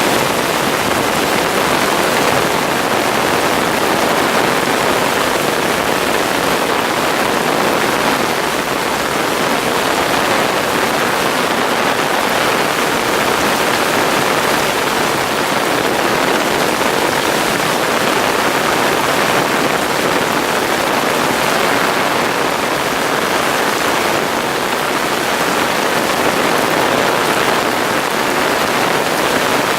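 Steady, unbroken rain from a tropical storm, falling hard on surfaces.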